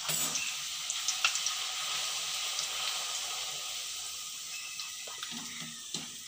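Poori deep-frying in hot oil: a steady sizzle that flares up at the start and slowly dies down, with a few light clicks of the metal skimmer against the pan.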